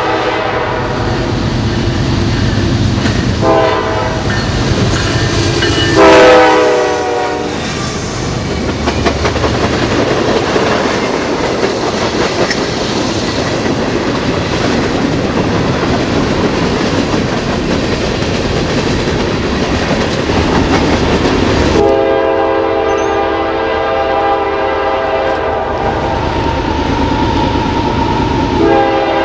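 Locomotive air horn sounding a multi-note chord in several blasts, the last and loudest about six seconds in. Then the rumble and wheel clatter of a train passing close by. About 22 seconds in the sound changes abruptly to another long, held horn chord.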